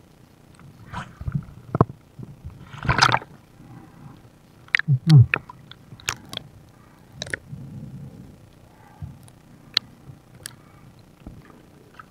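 Underwater sounds picked up by a diver's camera: scattered sharp clicks and knocks, a rush of gurgling water about three seconds in, and a loud low gurgle that falls in pitch about five seconds in.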